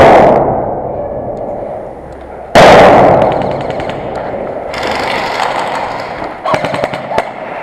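Airsoft grenade bangs: the echoing tail of one blast at the start, then a second sharp blast about two and a half seconds in that rings on and dies away over a couple of seconds. Short rapid bursts of airsoft gun fire clatter after it and again near the end.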